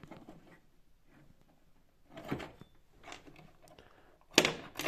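Quiet handling of aluminium pistons on a wooden workbench, with a couple of soft knocks and a louder sharp clatter near the end.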